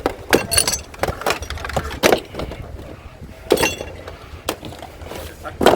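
Hard objects knocking and clattering together, about six separate knocks, the loudest near the end, as discarded electronics such as keyboards are handled and stacked.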